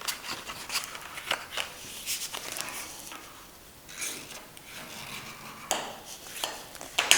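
Scrapbooking cardboard being folded and its creases rubbed down along the scored fold lines: irregular rustling and scraping with small taps, quieter for a moment in the middle.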